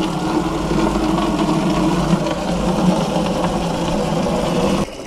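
Water running from an outside tap into a plastic watering can: a steady rush with a low hum from the filling can. It cuts off abruptly near the end as the flow stops.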